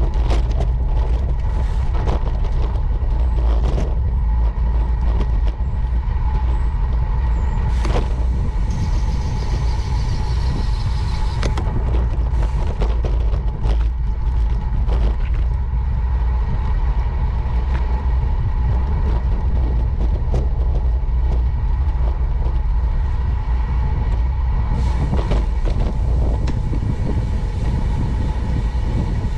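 Wind rumbling on the microphone of a camera mounted on a moving bicycle, with frequent knocks and rattles as the bike rolls over bumps in the pavement, and a faint steady tone underneath.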